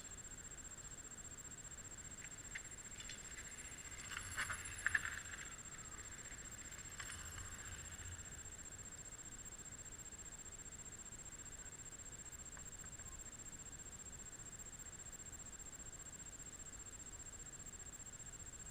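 Faint sound of a mountain bike coming down a dirt trail: a cluster of rattles and clicks from the bike about four to five seconds in, and a shorter one a couple of seconds later. A thin, steady high whine sits underneath throughout.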